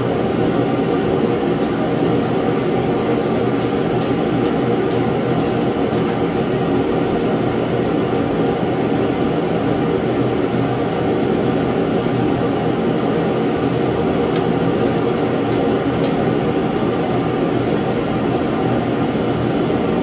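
Portable propane heater running with a loud, steady roar. Faint, irregular light clicks of a ratchet turning bolts sit above it.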